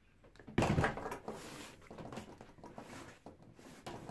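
A heavy 12 V lead-acid car battery is set down on a workbench with a thud about half a second in. Lighter knocks and shuffling of its plastic case follow as it is shifted into place.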